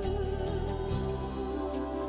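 Background music of held, sustained notes over a bass line that moves to a new note about a second in.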